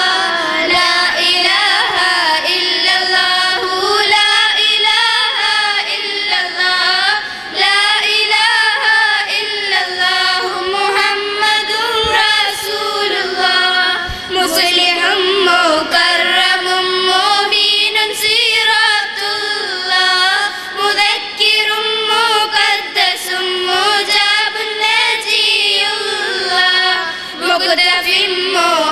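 A group of girls singing a song together into microphones, one continuous melodic line carried by several voices in unison.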